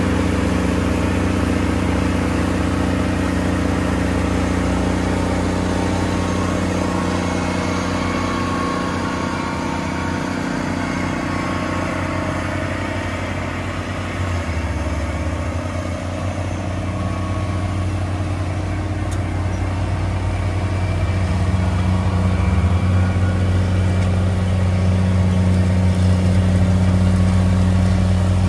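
Big Bud 525/50 four-wheel-drive tractor's 525 hp diesel engine running steadily under load while pulling a wide tillage implement through the ground. It dips slightly about halfway through and grows louder over the last several seconds as the tractor passes.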